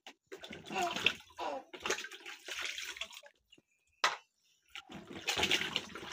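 Peeled potatoes splashing in a plastic bucket of water as hands stir and wash them, in two bouts of splashing with a short pause and a single click in between.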